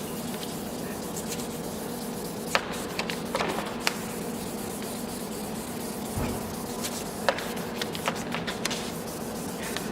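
Drill spinning a P800 grit sanding disc against a plastic headlamp lens: a steady motor hum with the scrub of the abrasive, and a few sharp clicks.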